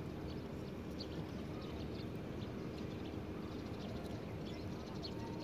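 Outdoor background noise: a steady low hum with scattered short, high chirps.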